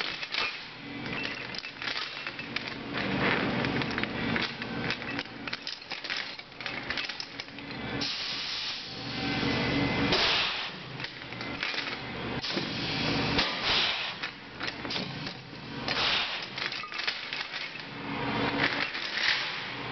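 A pneumatic tire chain tool cycling over and over, each stroke letting out a loud hiss of exhaust air, a few seconds apart. Heavy steel tire chain links clank and rattle between the strokes as the chain is worked through its jaws.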